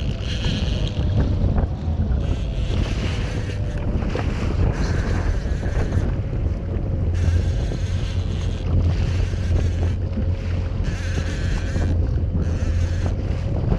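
Wind buffeting the microphone and seawater splashing and hissing against a jet ski's hull in irregular surges, over a low steady hum from the jet ski's engine.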